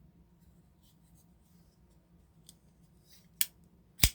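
Twosun TS85 folding knife being worked: faint small ticks, then two sharp metallic clicks of the blade action about two-thirds of a second apart near the end, the second louder.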